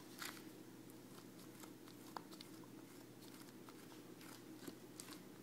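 Faint scraping and small ticks of a thin, flexible metal scraper drawn over the soft clay coils of a pot, smoothing out the ridges, over a low steady room hum.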